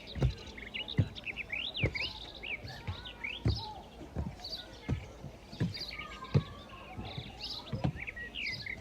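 Several small birds chirping and singing in quick, short rising and falling notes. Low, dull thumps come at a steady pace about every three quarters of a second and are the loudest sounds.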